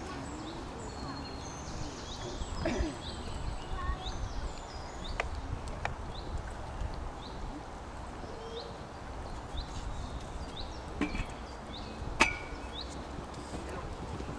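A horse trotting on a sand arena, its hoofbeats soft, with small birds singing short chirps over and over and a low wind rumble; a few sharp clicks stand out.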